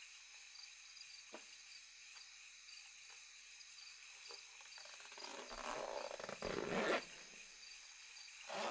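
Crickets chirping steadily, with a few faint clicks of handling. Then the zipper of a canvas duffel bag is dragged open in noisy rasping strokes, about five to seven seconds in and again near the end.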